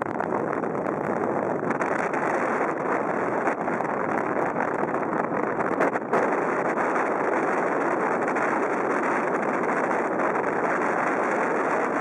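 Strong wind blowing over the microphone: a steady, rushing noise with a brief dip about six seconds in.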